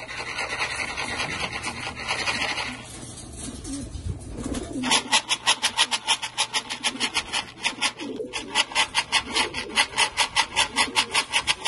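Racing pigeons cooing under a loud, harsh rasping sound. The rasp is dense and steady for the first few seconds, then from about five seconds in it pulses rapidly and evenly at about five strokes a second.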